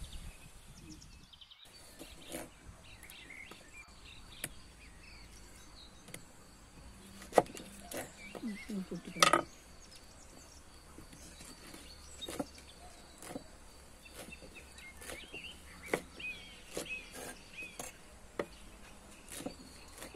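Kitchen knife cutting pineapple on a wooden chopping board: irregular knocks of the blade on the board, with two louder ones in the middle. Birds chirp faintly in the background.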